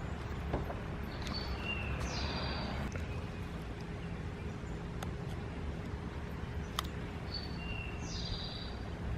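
A bird calls the same short phrase twice, about six seconds apart: a couple of brief high whistled notes, then a falling slurred note. Under it runs a steady low outdoor rumble, with a few faint clicks.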